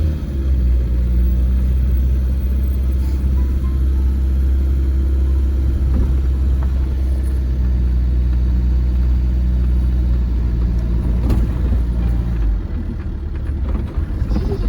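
Car running with a steady low rumble of engine and road noise. It wavers and drops briefly near the end.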